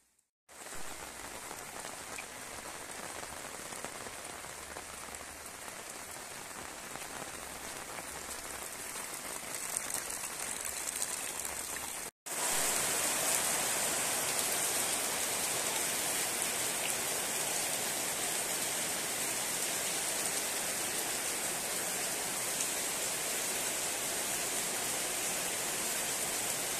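Heavy tropical rain pouring down in a dense, steady hiss. It cuts out for a moment about twelve seconds in and comes back louder.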